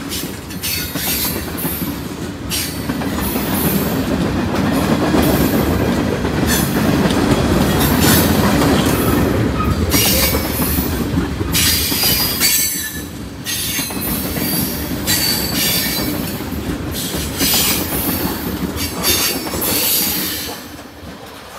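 Freight train tank cars rolling past close by: a heavy steel-wheel rumble on the rails with repeated high squeals from the wheels. The sound drops away near the end as the last cars go by.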